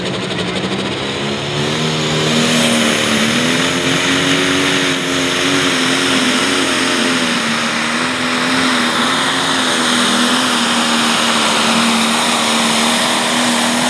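Turbocharged diesel engine of a Pro Stock pulling tractor running hard under load on a pull. A loud, steady engine note wavers slightly in pitch and gets louder about two seconds in.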